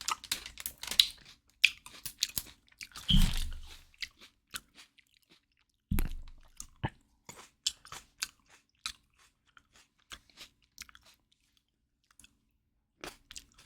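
A person chewing crunchy food: irregular crunches and clicks, with two louder thumps about three and six seconds in.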